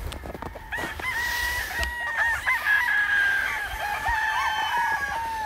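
Roosters crowing, several long crows overlapping one after another from about a second in.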